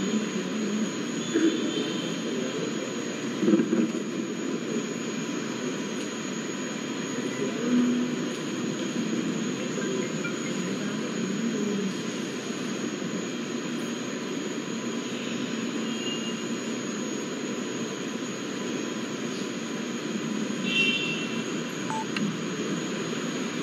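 Steady low background noise of a crowded hall, with a few brief high tones now and then.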